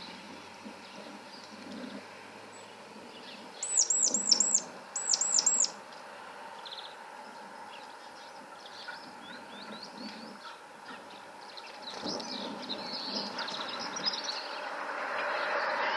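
Small songbirds calling: about four seconds in, two quick runs of loud, high, downward-sliding notes, four and then three, followed by softer scattered chirps.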